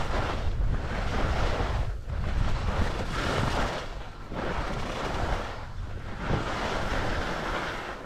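Skis hissing over snow while skiing downhill, the rush swelling and fading about every two seconds with the turns, under wind buffeting the action camera's microphone with a low rumble.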